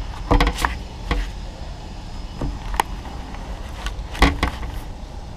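Handling knocks and scrapes of a helmet-mounted action camera being fitted and adjusted: a few sharp clicks and taps, the loudest a little after four seconds, over a steady low rumble.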